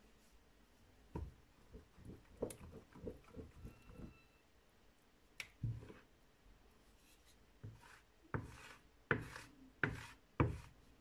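A wooden spoon stirring thin teff batter in a plastic bucket, knocking and scraping against its sides as the starter is worked through the batter. Scattered strokes give way to a quicker run of louder ones over the last three seconds.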